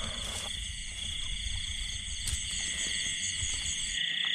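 Night chorus of frogs and insects in a flooded rice paddy: steady shrill chirping with rapid trills. A low rumble underneath stops near the end.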